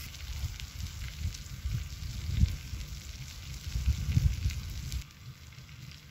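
Steak sizzling in a frying pan over a portable butane stove burner, with low gusty rumble from wind on the microphone. The sizzle quietens about five seconds in as the burner is turned down.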